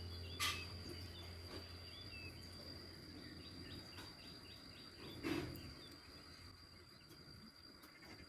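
Outdoor countryside ambience: a steady high insect drone with scattered bird chirps and a quick run of chirps about three seconds in. Two short knocks cut through, about half a second in and about five seconds in, the second the loudest sound.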